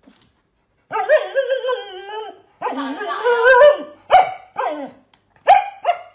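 A Samoyed-type dog vocalizing: two long wavering, whine-like calls that bend up and down in pitch, then four short, sharp barks in the last two seconds.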